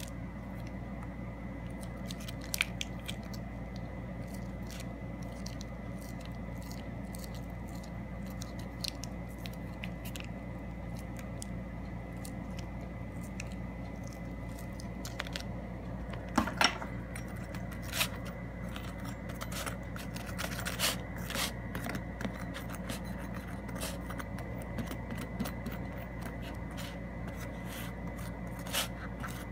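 A small paper packet being handled and emptied over a pretzel on a paper plate: scattered soft crinkles and ticks, with a few louder clicks around the middle, over a steady hum.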